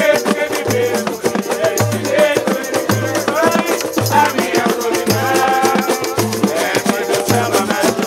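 Live samba: banjo-cavaquinhos strumming, tambourine and pandeiro jingling, and a hand drum striking a deep bass note about once a second, with voices singing over it.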